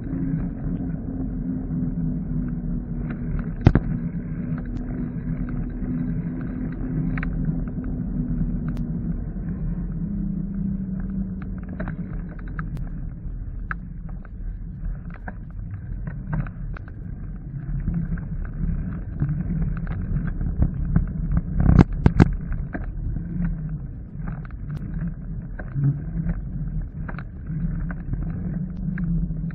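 Riding noise from a bicycle-mounted action camera: steady road rumble and wind on the microphone, with a low hum that drops in pitch about a third of the way in. Scattered sharp knocks, the loudest cluster about two-thirds of the way through.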